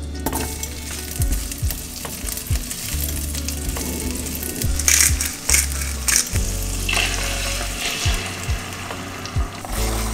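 Frying-pan sizzle as halved cherry tomatoes cook in hot oil for scrambled eggs, with several louder bursts of sizzle about halfway through.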